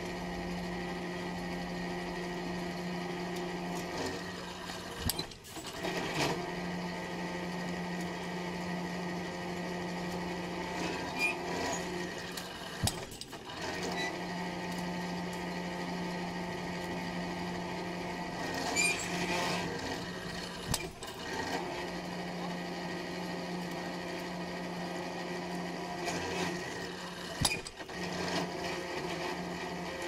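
Small electric-driven winch of a tripod drop-hammer pile driver running with a steady hum while it hoists the hammer. The hum breaks off briefly about every seven to eight seconds, with knocks, as the hammer is let fall onto the pile.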